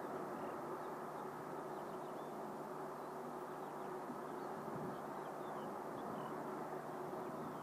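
Distant steam locomotive hauling an express train, heard as a steady, even rumble with no distinct exhaust beats, with faint bird chirps scattered over it.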